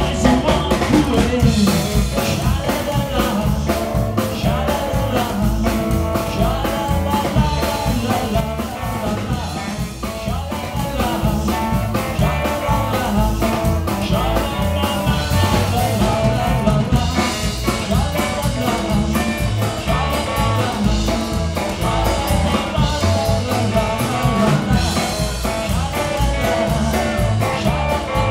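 Live band music: upright bass, electric guitar and drum kit playing a song with a steady beat, with a man singing over it.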